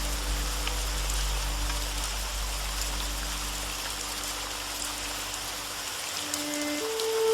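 Steady rain falling, an even hiss with scattered drop ticks. Soft, slow music sits under it; its held low notes fade away early on, and a new note enters near the end.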